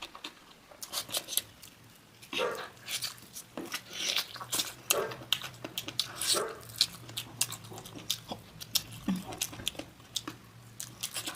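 Close-miked eating: many sharp, wet mouth clicks and chewing sounds, with a few short voice-like sounds in between.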